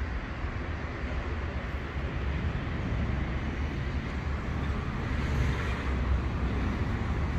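Steady low rumble of background traffic, growing a little louder toward the end.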